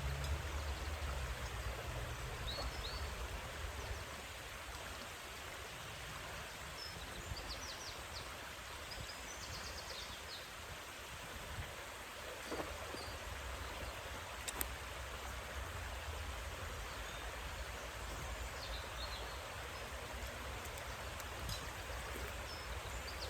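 Steady outdoor background noise, an even rushing hiss, with a low rumble for the first few seconds. A few faint high bird chirps and a couple of light ticks sound over it.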